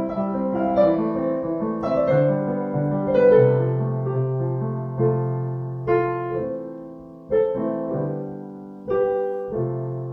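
Solo piano playing an original composition. Notes move quickly at first, then separate chords are struck every second or so and left to ring and fade, slowing toward the close of the piece.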